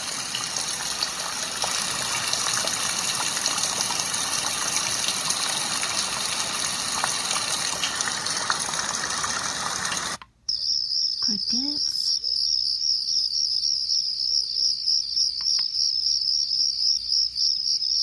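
Housbay white noise machine's speaker playing a recorded rushing-water sound, which cuts off abruptly about ten seconds in as the next sound is selected. It then plays a recorded cricket chorus: a steady, evenly pulsing high chirp.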